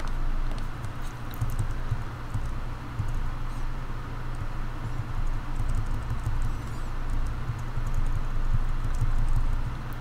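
Steady low rumble of background noise on the voice-over microphone, with faint scattered clicks.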